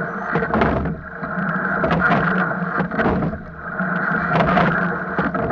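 Rowing shell under way: water rushing along the hull and splashing at the oar blades, surging and easing about every two and a half seconds with the stroke, with many sharp clicks and knocks from the oars and rigging.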